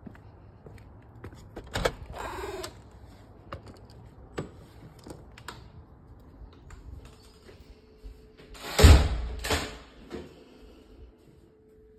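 A glazed folding patio door being worked. It gives a knock and then a rolling scrape about two seconds in, and two loud thuds near nine seconds as it is pushed to, with light footsteps and knocks in between. A faint steady hum comes in after about seven seconds.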